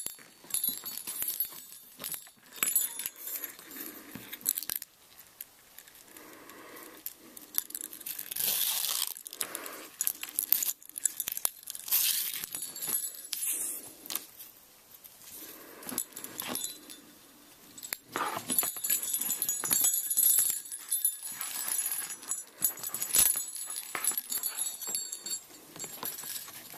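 Small metal jingle bells on a leather dog collar clinking and jingling in irregular bursts as the strap is handled, mixed with the scrape of a leather lace being pulled through punched holes in the strap.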